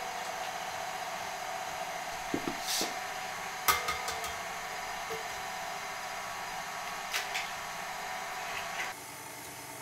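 KitchenAid stand mixer running steadily with its wire whisk in a glass bowl while ingredients are added, with a few short clinks of a metal utensil against the glass.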